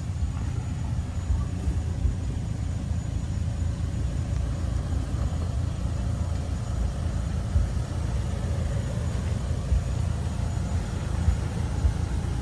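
Toyota 4Runner running on the trail: a steady low engine and drivetrain rumble with a few brief knocks.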